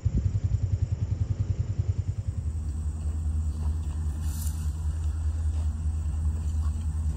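Low engine rumble, as of an idling vehicle engine. It pulses quickly for the first two seconds or so, then runs steadier.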